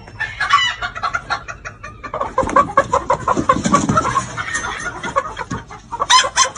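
Chickens clucking and cackling in quick, repeated calls. The calls grow busier about two seconds in, with a loud flurry near the end.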